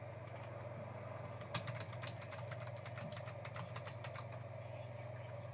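Rapid run of clicks on a computer keyboard, about two and a half seconds of quick taps over a steady low electrical hum.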